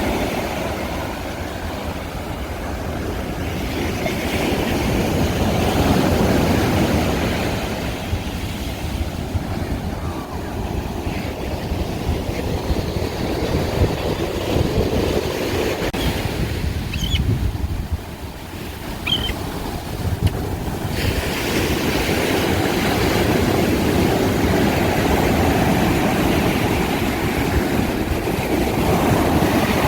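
Wind buffeting the microphone over the rush of surf breaking on the beach: a loud, uneven low rumble that eases for a few seconds about two thirds of the way through, then returns.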